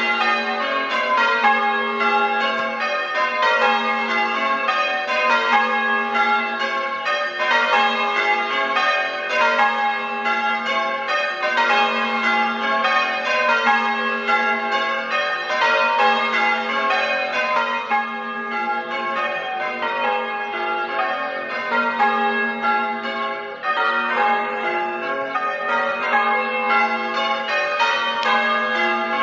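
A ring of six church bells, the heaviest about 9 cwt and tuned in A flat, being change rung. The bells are struck one after another in a steady, evenly spaced rhythm, and their tones overlap as each one rings on.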